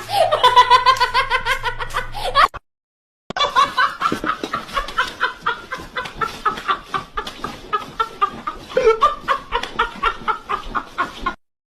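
Two sound-effect clips back to back. The first is a high, pitched laugh in quick pulses that stops about two and a half seconds in. After a short silence comes a long run of rapid, choppy cackling that could be a laughing voice or a clucking hen.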